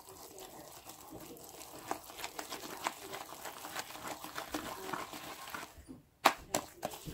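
Wire whisk beating thick cake batter in a ceramic bowl: quick light clicks and wet stirring as the wires hit the bowl. The sound stops briefly about six seconds in, then comes a sharp knock.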